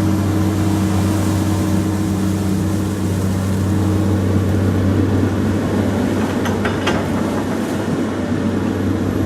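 Komatsu PC200 excavator's diesel engine running steadily, its note getting rougher partway through, with a few short metallic clanks about two-thirds of the way in.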